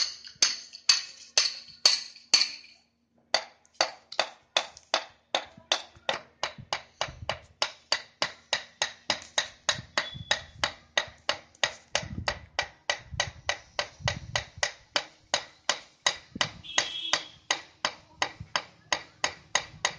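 A hammer striking a steel bar against interlocking concrete paver blocks, evenly spaced ringing metallic blows. They come about two a second, then after a short break about three seconds in, about three a second.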